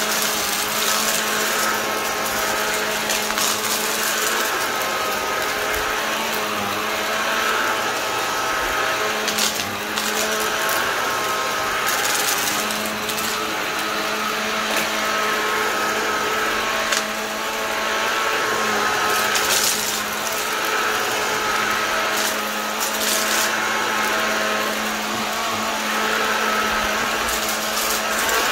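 Vacuum cleaner motor running steadily with a whining hum, its pitch and loudness swelling and easing every few seconds as it is pushed back and forth, with occasional sharp crackles.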